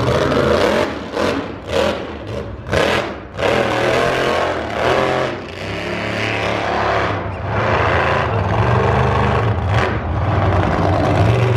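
Monster truck engine revving hard in several loud bursts over the first few seconds, then running at a steadier pitch.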